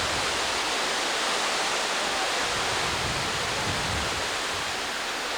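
Hurricane wind rushing steadily through trees, with gusts buffeting the microphone in low rumbles about three to four seconds in.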